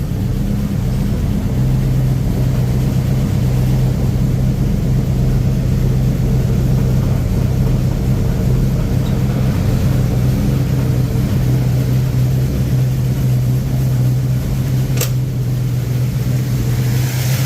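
Ford F350's gasoline engine idling steadily just after start-up on fresh oil, with the oil not yet fully pumped up. The owner expects the engine's noise to quiet down once oil pressure builds, the old oil having been thinned by gas dilution. A single sharp click about fifteen seconds in.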